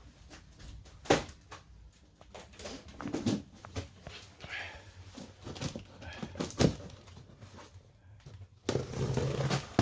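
A few sharp knocks and rustling handling noises, with a louder scraping, rustling stretch lasting about a second near the end.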